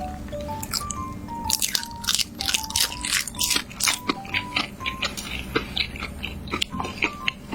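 Close-miked crunchy bites and chewing of food, many sharp crunches in quick clusters, over a simple background music melody.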